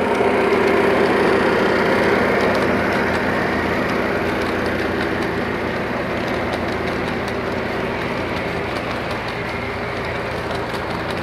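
Lionel O-scale model train running on three-rail track: a steady rumble of wheels on the rails, mixed with the electronic diesel engine sound from the BNSF locomotive's speaker. It is loudest about a second in and eases off slowly as the train moves on.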